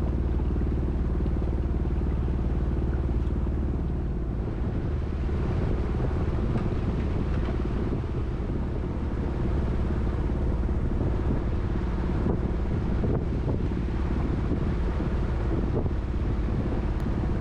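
Boat outboard motor running steadily under way at low speed, with a slight drop in level about four seconds in. The engine is running on one cylinder, and the owner fears it will stall if he throttles back any further.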